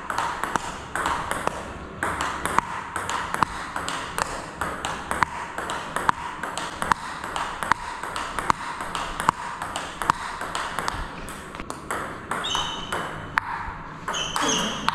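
Table tennis ball in a fast backhand-to-backhand rally: rapid, regular clicks as the ball strikes the bats and the table, several a second, each with a short ping. Two or three brief high squeaks come near the end.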